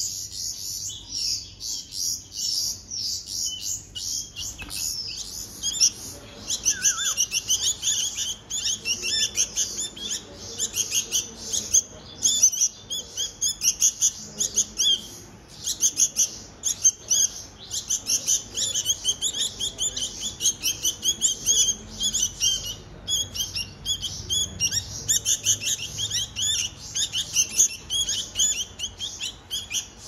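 Bulbul chicks giving a steady stream of rapid, high-pitched begging chirps, several a second, while begging to be hand-fed. The chirping is sparser for the first few seconds, then runs thick.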